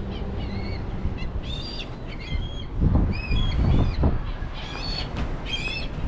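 Black kites calling over and over: short, high, squealing calls from several birds. Low rumbling gusts come and go about halfway through.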